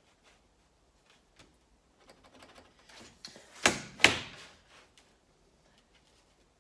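A steel ruler and marker working on a galvanized steel sheet while the fold line is marked: faint ticks and light scraping, then two sharp clacks about half a second apart, a little under four seconds in.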